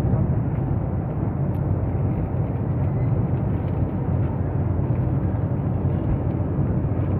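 Steady low rumble of a jet airliner's cabin noise at cruise, heard from a seat inside the cabin through a phone's microphone.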